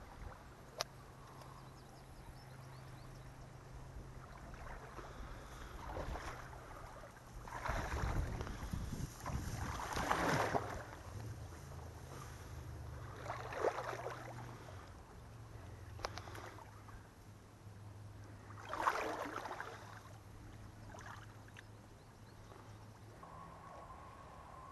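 Someone wading up a shallow, weedy creek: water sloshing around the legs in several slow surges, over a faint low steady hum.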